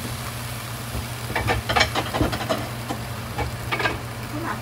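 Vegetables and broth simmering in a frying pan: a steady low hum under a faint hiss, with short runs of clicking and popping about a second and a half in and again near the end.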